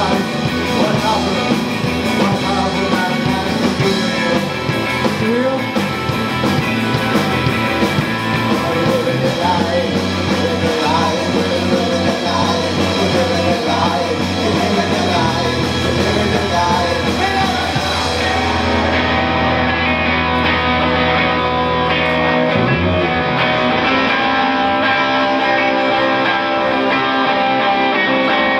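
Live rock band playing electric guitars, bass guitar and drum kit, with a voice singing over roughly the first half and long held bass notes in the middle.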